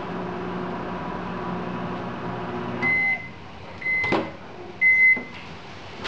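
General Electric microwave oven running with a steady hum that cuts off about three seconds in as its timer runs out, followed by three short high end-of-cycle beeps about a second apart. A clunk sounds between the second and third beeps.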